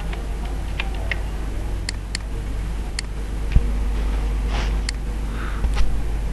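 Scattered single clicks of keys being typed on a computer keyboard, a few per second with gaps, over a steady low hum.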